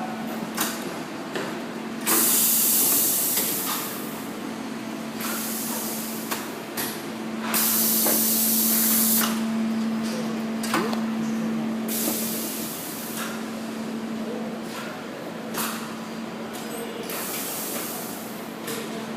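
Sliding-table high-frequency PVC bag welding machine working: repeated bursts of air hiss, each lasting a second or two, over a steady electrical hum, with clicks and knocks between the bursts.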